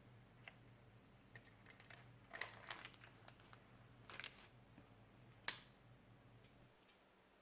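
Kitchen utensils handled during baking: a few light clicks and taps, loudest about two seconds and five and a half seconds in, over a faint low hum that stops near the end.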